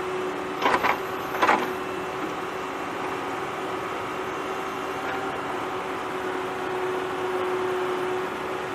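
Two short scraping rasps about a second in, as a plastic toy loader bucket digs into a pile of sand, over a steady mechanical hum with a held tone.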